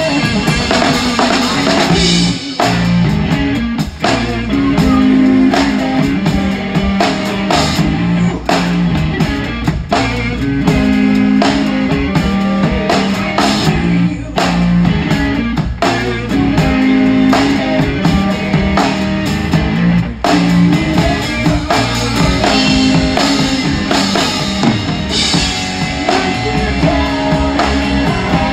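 Rock trio playing live, heard close to the drum kit: a large kit with a 26-inch bass drum and big ride cymbals keeps a steady beat under guitar. The cymbals and drums carry through loudly with no break.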